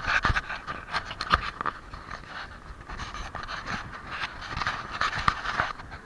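Gusty wind buffeting a handheld camera's microphone, a rough rushing noise broken by many short crackles and knocks.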